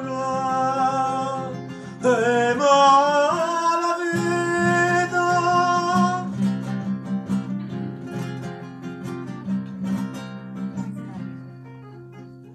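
A man singing a Neapolitan serenade in long held notes with vibrato, over plucked acoustic string accompaniment. About six seconds in the voice stops and the strings play on alone, growing quieter toward the end.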